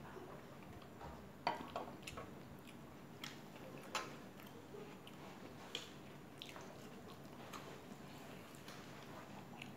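Close-up eating and drinking sounds: a sip of tea and soft chewing clicks. A china teacup is set down on its saucer with a sharp clink about four seconds in.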